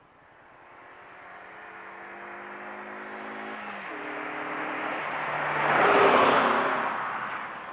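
Toyota Echo's 1NZ-FE 1.5-litre four-cylinder engine at wide-open throttle as the car drives past: the sound builds steadily, the engine's pitch changes a little under four seconds in, and it is loudest about six seconds in before fading as the car moves away.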